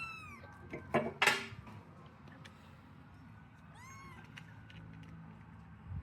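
Kitten meowing: a high meow ending just after the start, a second meow about four seconds in, and a short burst of noise about a second in.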